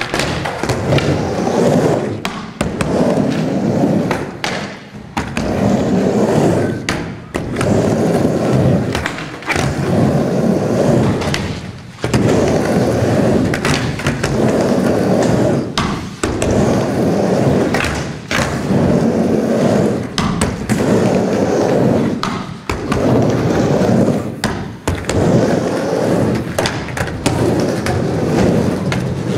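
Skateboard wheels rolling back and forth on a wooden mini ramp: a rumble that swells and fades about every two seconds, broken by sharp clacks of the board and trucks at the top of each wall.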